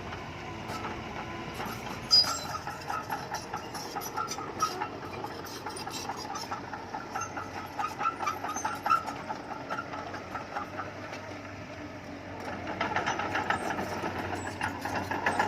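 Bulldozer working, its diesel engine running under a steady clatter of metal clanks and rattles, growing louder about three quarters of the way through.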